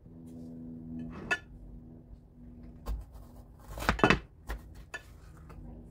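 Kitchen knife cutting jalapeño peppers in half on a cutting board: a few sharp knocks and taps of the blade on the board, the loudest cluster about four seconds in, over a faint low steady hum.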